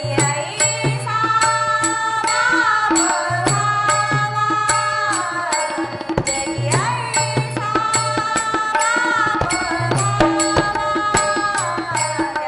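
Women's voices singing a Marathi devotional bhajan, accompanied by harmonium and a steady beat of small brass hand cymbals (taal) struck in time.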